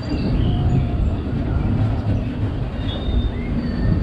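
Disneyland Railroad steam train running along the track, heard from aboard: a steady low rumble of the cars on the rails, with a few faint high squeals.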